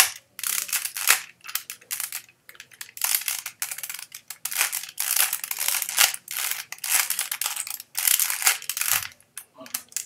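A Rubik's 3x3 cube being turned quickly by hand, its plastic layers clicking and rattling in rapid irregular bursts with short pauses between runs of moves.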